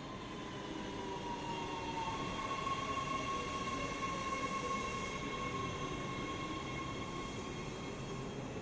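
Los Angeles Metro B Line subway train running through the station, a steady high whine over the rumble of the train, loudest about three seconds in.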